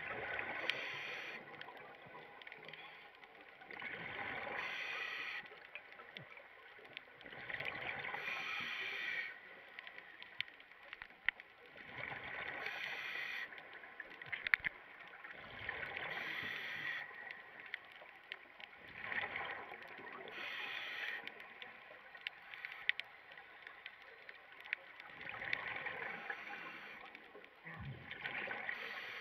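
Scuba diver breathing through a regulator: a rush of exhaust bubbles with each exhalation, about every three to four seconds, with quieter stretches and scattered sharp clicks between.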